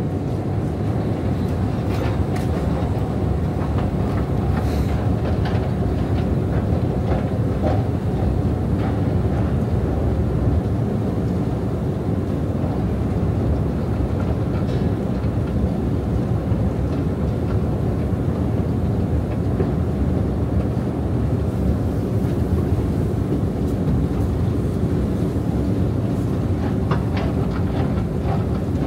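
Long deep-station escalator running while being ridden: a steady low rumble of the moving steps and drive machinery, with a few faint clicks.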